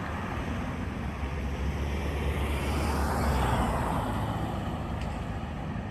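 Road traffic: a steady low rumble of vehicles, with a car passing and swelling loudest about three seconds in.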